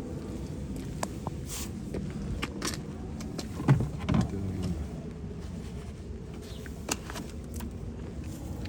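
Scattered light clicks and knocks from hands handling a car's turn signal lamp parts, with one louder knock about halfway through, over a steady low hum.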